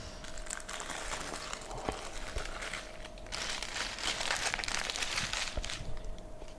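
Aluminium foil being peeled off a bowl and crumpled by hand, a crinkling that grows denser and louder about halfway through before easing off near the end.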